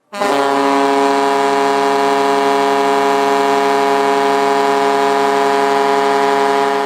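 Custom Vancouver Canucks hockey goal horn sounding one long steady blast, several pitched tones at once, held for nearly seven seconds and tailing off at the end.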